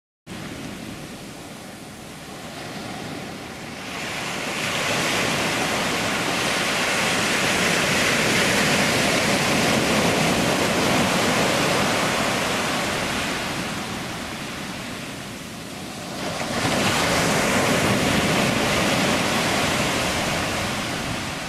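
Small waves breaking and washing up a sandy beach: a steady surf wash that swells about four seconds in, eases off, then swells again around sixteen seconds.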